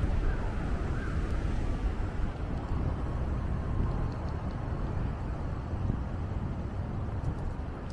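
City traffic noise: a steady low rumble of passing cars with no single event standing out.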